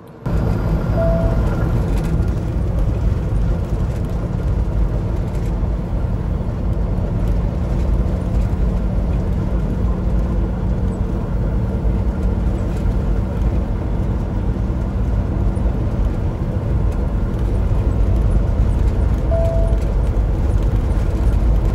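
Cummins X15 diesel of a Peterbilt 389 semi truck running steadily at road speed, heard from inside the cab with tyre and road noise.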